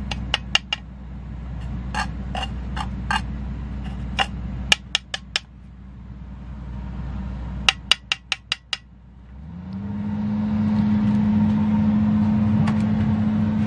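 A magnet tapping and clicking against the rim of an enamel bowl in quick groups of sharp clicks while black sand is cleaned out of dried gold concentrate. About ten seconds in, a steady motor hum starts up and runs on.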